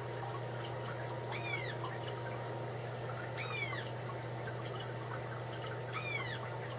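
Aquarium filter running: a steady low hum with water trickling. Over it come three short, high animal calls, each rising and then falling in pitch, about a second and a half in, midway and near the end.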